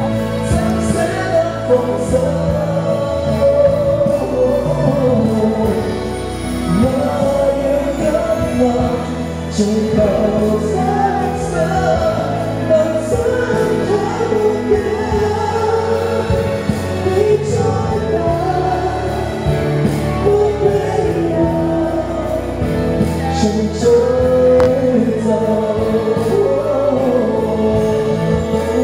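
Male pop singer singing live into a handheld microphone over a recorded backing track.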